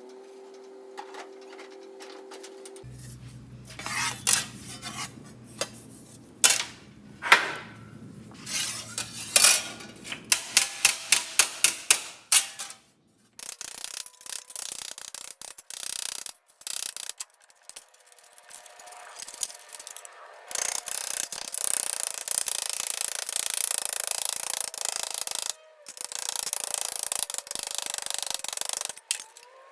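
Sheet-metal shop work in several cut-together clips. First come scattered sharp knocks and taps, including a quick run of about three evenly spaced strikes a second. Then a loud, steady hiss fills most of the last third.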